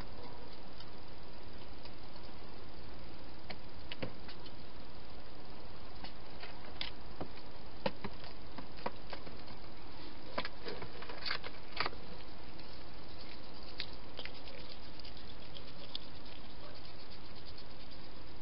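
Hedgehog feeding at a bowl: scattered, irregular clicks and crunches of eating, busiest about two thirds of the way through, over a steady background hiss.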